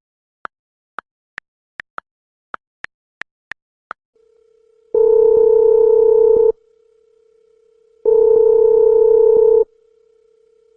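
Telephone call being placed: about ten short keypad beeps in quick succession, then the ringback tone of the line ringing, two long beeps about three seconds apart.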